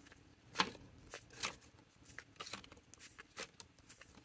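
Paper ink swatch cards being flipped through by hand and set down on a desk: a series of light paper rustles, flicks and taps, the loudest about half a second in.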